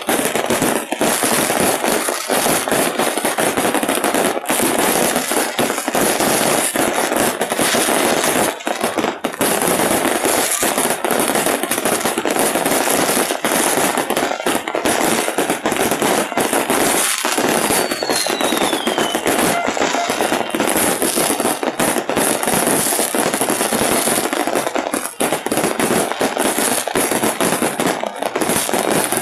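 Dense, continuous fireworks barrage: rapid crackling and popping bursts with no let-up, and a single falling whistle partway through.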